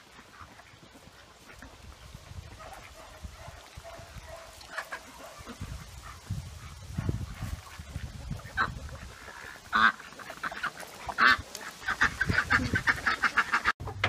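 Domestic ducks quacking around a feeder: scattered single quacks, then a quick run of repeated quacks near the end.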